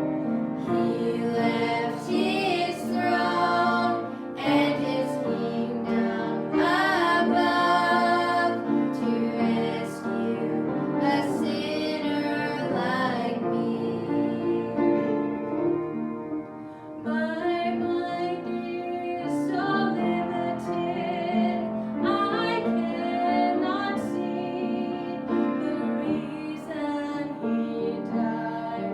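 A gospel song sung with piano accompaniment, a woman's voice leading with vibrato.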